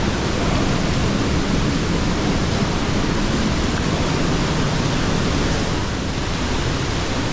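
Steady rushing of water flowing through a narrow rock gorge.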